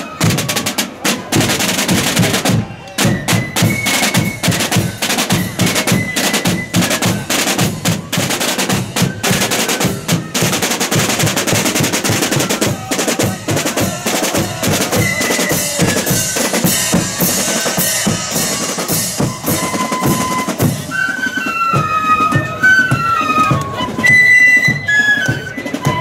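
Snare drums and bass drum of a marching flute band playing a parade beat with rolls. Near the end the flutes come in with a melody over the drums.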